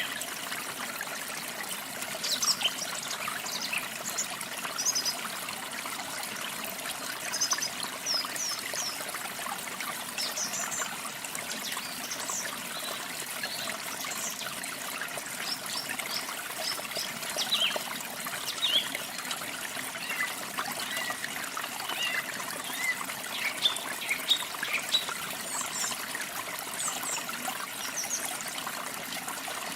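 Water trickling steadily, like a small stream, with small birds chirping in short, high calls scattered throughout.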